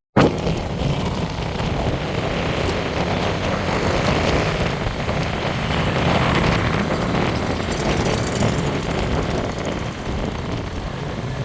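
A moving vehicle on the road: a steady rush of wind and engine noise, starting abruptly and holding throughout.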